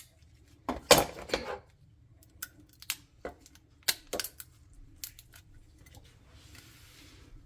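Raw crabs being chopped and their shells cracked while they are cleaned: a quick cluster of sharp knocks about a second in, then scattered clicks and taps, with a short soft hiss near the end.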